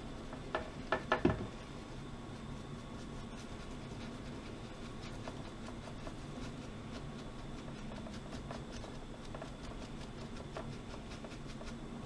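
A small brush scrubbing the freshly soldered pins on a graphics card's circuit board: a faint scratchy rubbing. Four sharp clicks come close together about a second in.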